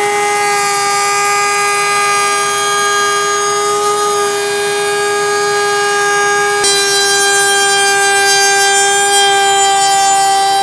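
Table-mounted router running at full speed with a steady high whine, as a cedar box is fed against a round-over bit with a lip. The pitch steps slightly about two-thirds of the way through.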